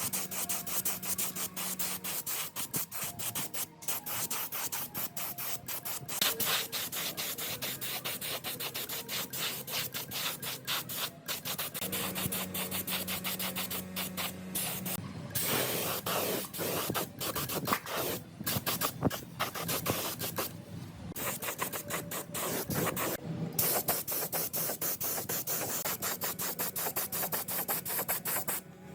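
Rapid, uneven abrasive scrubbing strokes on metal, typical of hand-cleaning rust off gearbox parts.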